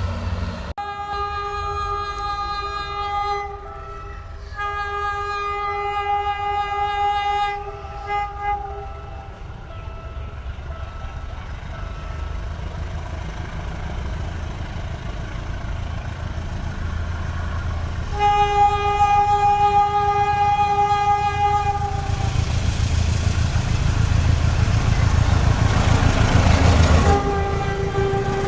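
Diesel locomotive horn, a GE U15C's, sounding two long blasts, two short ones, then another long blast about 18 seconds in and a fresh blast near the end. A low diesel and rail rumble builds under it as the train passes.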